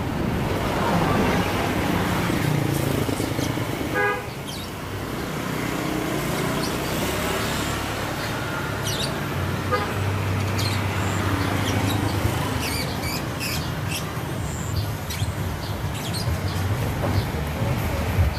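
Road traffic rumbling steadily, with a short vehicle horn toot about four seconds in and a fainter brief toot near the middle.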